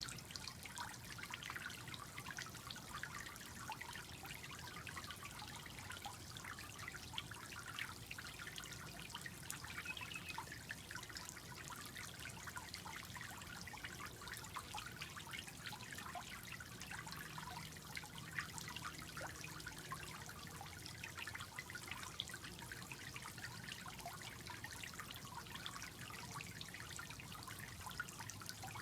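Steady trickle of water from a Tetra pond filter fountain splashing into a small turtle pool.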